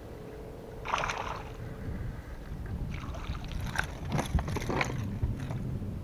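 Rod-and-reel handling on a bass boat deck: a short steady whir in the first two seconds, then irregular clicking and rustling about a second in and again through the middle.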